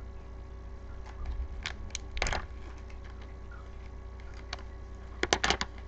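Trading cards and a foil card-pack wrapper being handled and opened: scattered crackles and sharp clicks, with a quick run of clicks a little past five seconds in, over a faint steady hum.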